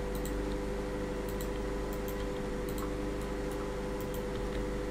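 Faint, scattered computer mouse and keyboard clicks over a steady hum.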